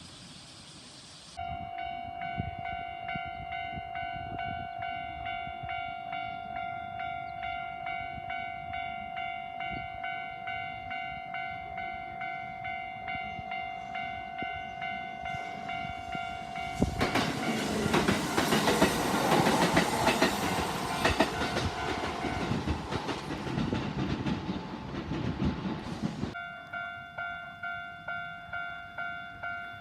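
Japanese level-crossing warning bell, the standard electronic alarm, starts about a second in and rings in even pulses about twice a second. Just past halfway a train rushes through the crossing for about nine seconds, and the bell keeps ringing after it has gone.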